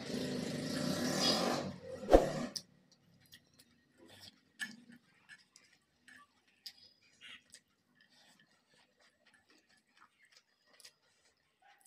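A subscribe-button sound effect, a noisy swoosh with a sharp click about two seconds in, then stops. After it come faint, scattered soft clicks of fingers mixing rice and dal on a plate.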